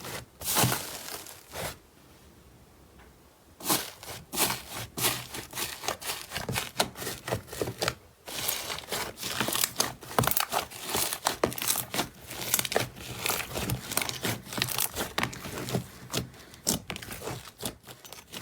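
Slime being worked, giving dense sharp crackling and crinkling, with a quieter lull about two seconds in and the crackling picking up again about a second and a half later.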